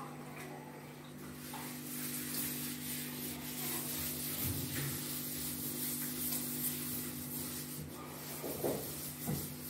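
Ceramic wall tiles scrubbed by hand, a rough rubbing hiss in uneven strokes, with a steady low hum underneath.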